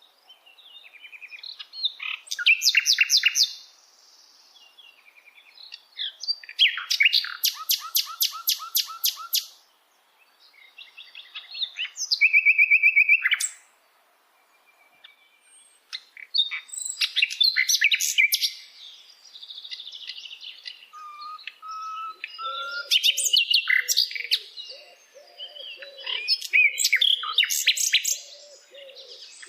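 Wild songbirds singing: a run of loud, rapid trilled and chirping song phrases, each a second or two long, with short pauses between them. In the second half a lower, repeated pulsing call joins in beneath the song.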